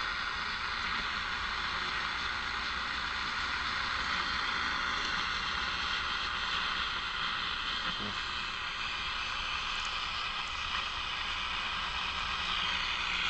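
Old Detrola tube radio giving off a steady hiss of static through its speaker, with a low hum underneath.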